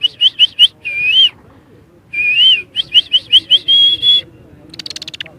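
A man whistling an imitation of birdsong: quick runs of short rising chirps, about five a second, broken by longer warbled notes. There is a pause in the middle, and a quick rattle of clicks comes near the end.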